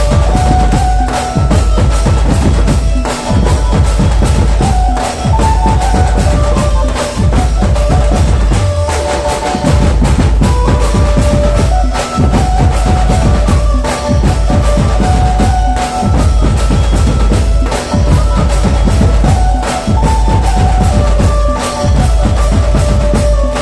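Gaura-Gauri jas geet devotional folk music: a loud, steady drum beat over a deep bass drum, with a short melody repeating over and over.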